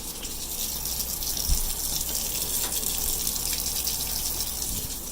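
Water running steadily through household plumbing as the toilet tank refills, the supply line having just thawed after freezing solid. A brief low bump comes about a second and a half in.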